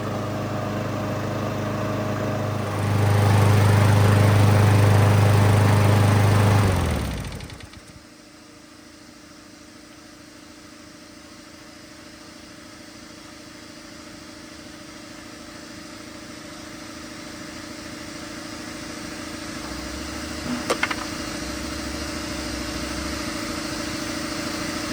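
Kohler Courage XT single-cylinder overhead-valve engine on a Craftsman push mower running steadily. It gets louder at about 3 s, then stops about 7 s in, winding down over about a second. After that a faint steady hum remains, with a single short click near the end.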